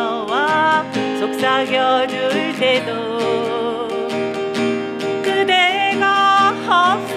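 A voice singing over acoustic guitar accompaniment, holding notes with a wavering vibrato.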